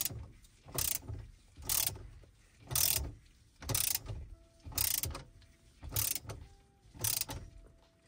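Ratcheting torque wrench on an extension tightening the steering wheel's center bolt, its pawl clicking on each back-swing in short bursts about once a second.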